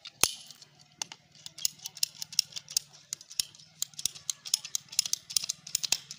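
Ratcheting PVC pipe cutter clicking as its handles are squeezed and its blade works through a white PVC pipe: a string of sharp, uneven clicks, about four a second, after a single louder click at the start.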